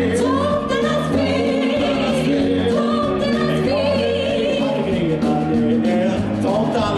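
Male and female voices singing into handheld microphones over instrumental accompaniment with a steady bass line, the held notes wavering with vibrato.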